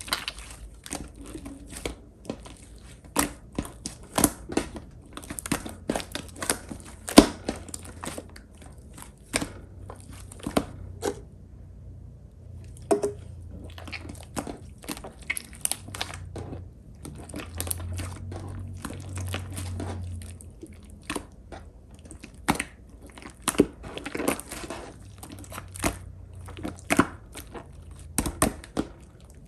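Clear pink slime being squished and pulled by hand, giving off many sharp, irregular clicks and pops, with a short lull about halfway through.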